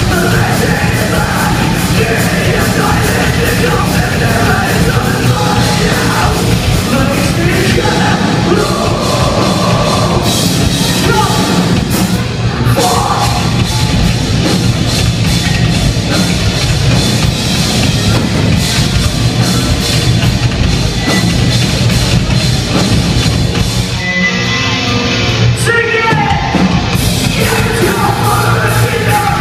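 Live rock band playing loud: electric guitars, bass and drums with a lead vocal.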